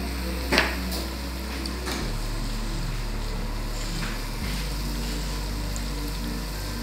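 Churro dough sticks deep-frying in hot oil, a steady sizzle, with a low steady hum underneath and one short click about half a second in.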